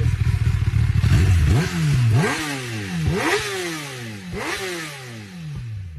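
Kawasaki ZX10R inline-four engine on its stock exhaust, running with a steady deep rumble, then blipped sharply about four times from about a second and a half in, each rev rising quickly and falling back slowly.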